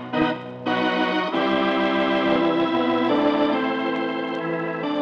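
Radio show theme music: a few short, separated chords at the start, then held chords that change about every one and a half to two seconds.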